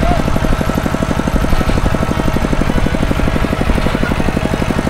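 Small two-wheel walking tractor's single-cylinder diesel engine running steadily close by, with a fast, even chugging of about ten beats a second.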